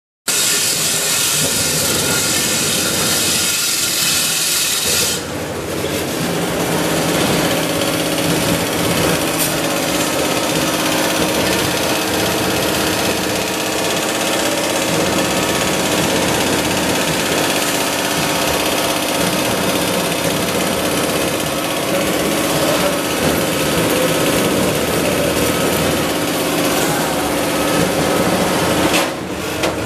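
Wire-processing machines running on a factory floor: a loud, steady mechanical din with several constant hums, dipping briefly about five seconds in.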